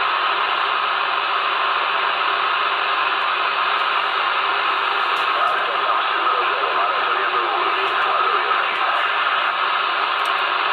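Steady receiver hiss from a CB radio with the squelch open, with a faint, unreadable voice transmission buried in the noise partway through.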